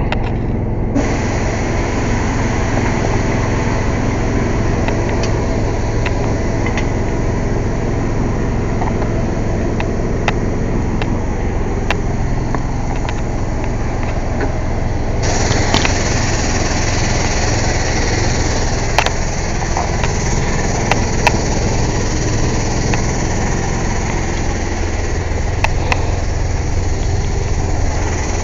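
Air compressor running steadily with a low, engine-like drone. About fifteen seconds in, a louder hiss joins it, with a few faint clicks.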